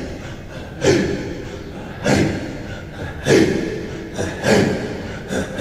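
Music: deep drum strikes about once every 1.2 seconds, each ringing on, over a held low tone. This is a pause between the sung lines of a Turkish devotional hymn (ilahi).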